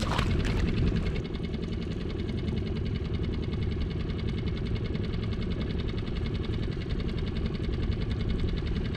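A splash of water beside the boat's hull right at the start, then a small boat engine idling steadily with a fast, even pulse.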